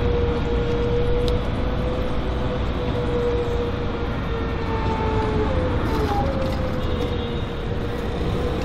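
Wheels of a GVB articulated tram squealing on a curve as it rolls away: one steady high squeal that wavers slightly in pitch, with a second, higher squeal joining about five seconds in, over the low rumble of the tram and street traffic.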